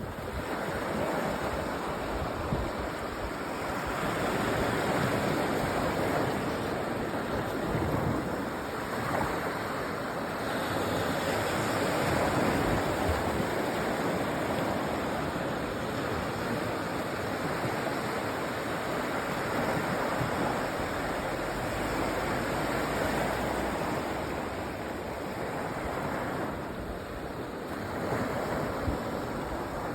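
Sea waves washing onto a sandy beach: a continuous rushing surf that swells and eases every few seconds.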